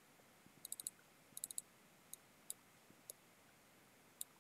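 Computer mouse button clicking: about a dozen short, sharp clicks, two quick runs of several clicks in the first two seconds, then single clicks spaced out. A faint room hiss lies underneath.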